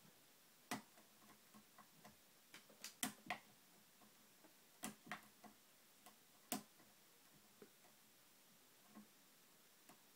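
Faint, irregular metallic clicks and ticks of a lock pick and tension wrench working the pins of a TrioVing oval cylinder during single-pin picking. The lock has double-sided mushroom security pins, which give it many false sets.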